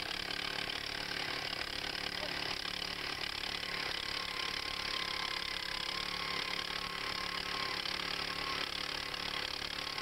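Small gasoline engine of a two-man power earth auger running steadily under load as the auger bores into the ground.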